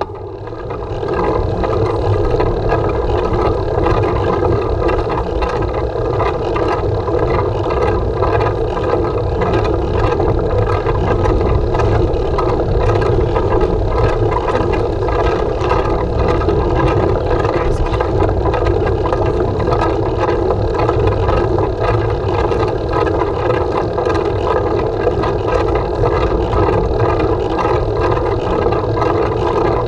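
Steady rush of wind and tyre-on-road noise from a road bicycle being ridden, with wind buffeting the bike-mounted camera's microphone. It is a little quieter for the first second, then holds steady.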